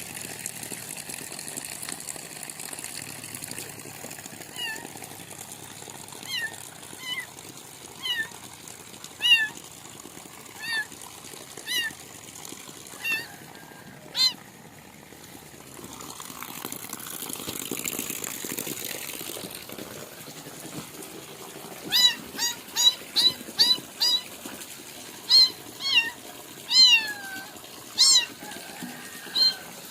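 Kitten meowing in short, high-pitched cries, about one a second at first and then in a quick run of many near the end, over the steady hiss of heavy rain.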